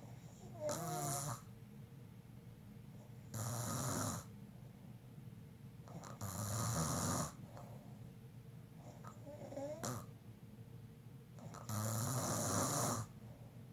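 Snoring in a steady rhythm: five snores about three seconds apart, each lasting about a second.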